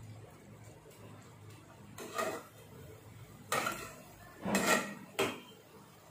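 Metal spatula scraping and clattering against a non-stick kadai while stirring vegetables, in four short bursts starting about two seconds in.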